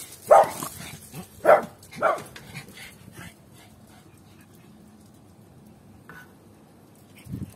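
Puppies barking at play: three loud short barks in the first two seconds or so, then a few weaker ones.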